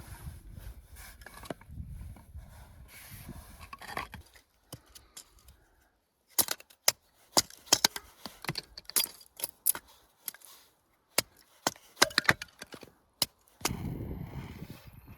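Dry wood being broken up: sharp, irregular cracks and knocks in quick clusters from about six seconds in until shortly before the end. Before and after them, a low rumbling noise.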